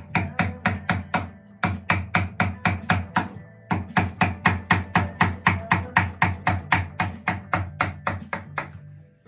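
Mallet striking a carving chisel or gouge into wood in quick, even taps, about five a second, with two short breaks, over quiet background music.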